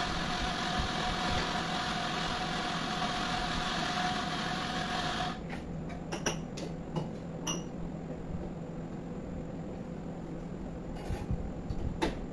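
Espresso-making equipment runs with a steady whirring hiss for about five seconds and cuts off abruptly. A few sharp clicks and knocks follow, the last ones near the end as the portafilter is locked into the espresso machine's group head.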